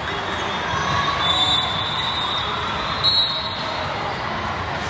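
Steady din of a large hall at a volleyball tournament: many voices mixed with balls bouncing and being struck. A short high-pitched tone sounds about a second in, and a louder one about three seconds in.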